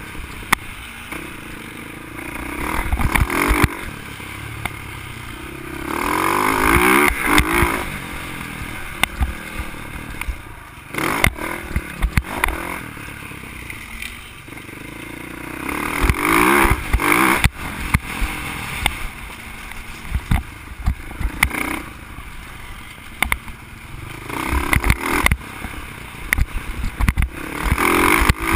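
Dirt bike engine heard from the rider's helmet, opening up in three rising surges as the bike accelerates along the trail and dropping back between them. Sharp knocks and clatter come from the bike bouncing over the rough dirt.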